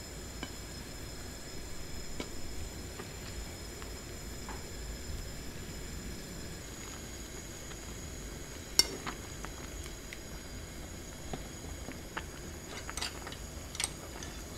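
Metal tongs clinking and scraping against a metal hot-pot while stirring sliced beef and vegetables in broth, a few scattered clinks with the sharpest about nine seconds in and a couple more near the end.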